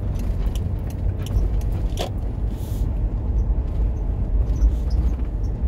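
Car driving slowly, a steady low road-and-engine rumble heard from inside the cabin, with one short sharp click about two seconds in.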